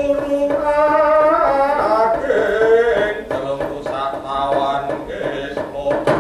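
A wayang puppeteer's solo chanted song, one voice holding long, drawn-out notes that bend and slide in pitch, dipping lower about two seconds in.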